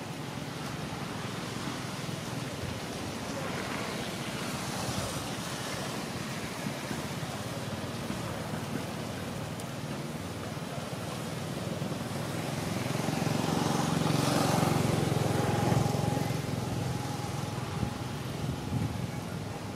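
Steady outdoor background noise. In the second half a motor vehicle passes, its engine swelling to a peak and fading again.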